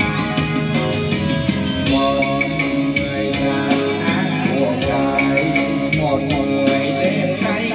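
Music playing: a song with a regular drum beat under a melodic lead line.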